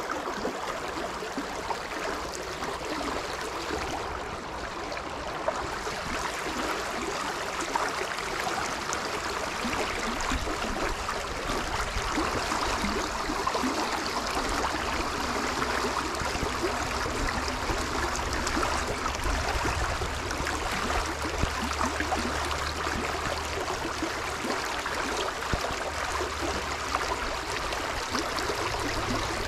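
Small river flowing steadily, a constant rush of running water.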